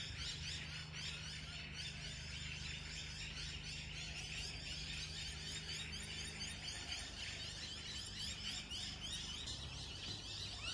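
Many birds chirping and calling together, with a steady low hum underneath.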